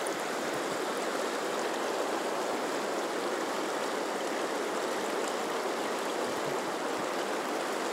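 The Firehole River's current rushing steadily over a choppy stretch of water.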